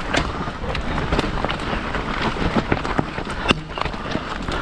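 Mountain bike riding down a rough dirt trail: tyres rumbling over the ground, with rapid, irregular clatter and knocks from the bike over bumps.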